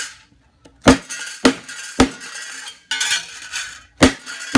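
Ball peen hammer striking a small urethane-coated metal sample plate on a board: five sharp metallic knocks, three about half a second apart, then two more near the end.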